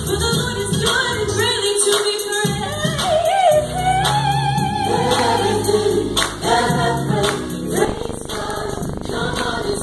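Live gospel worship music: a vocal group singing together with vibrato over a band, with steady rhythmic percussion and tambourine.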